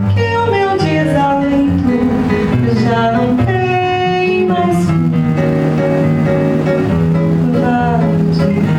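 Violão (Brazilian acoustic guitar) played with a woman singing over it.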